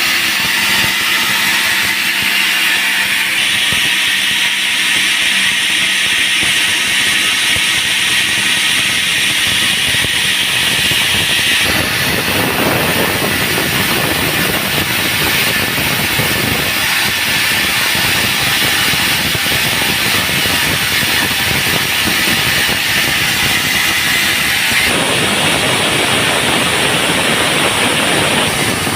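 Band sawmill running, its blade sawing through a dry teak log with a steady, hissing noise that shifts in tone several times as the cut goes on.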